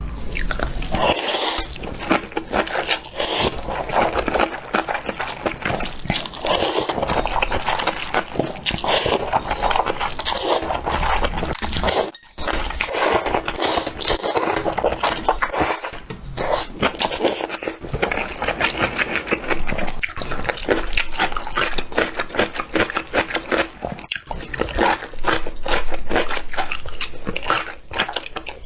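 Close-miked eating sounds: thin noodles in soup being slurped in long pulls, then chewed with wet mouth clicks and smacks.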